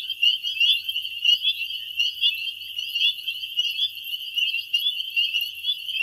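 Chorus of spring peepers: many frogs giving short, high, rising peeps that overlap into a continuous shrill din.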